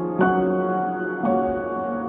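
Slow background music of held chords. A new chord comes in near the start and another just past the middle, each ringing on until the next.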